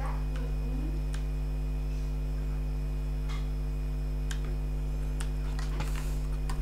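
Steady low electrical mains hum, with several short, sharp clicks of a computer mouse scattered through it.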